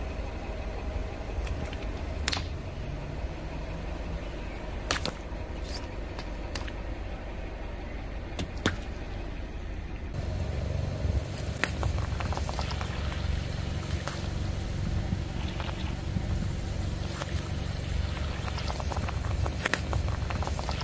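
A car's low engine rumble as its tyre rolls slowly over rubber gloves filled with water beads, with a few sharp pops in the first half as the gloves burst. After a cut about halfway through, the rumble is louder and a dense run of small crackles and squishes follows as the tyre crushes the water beads.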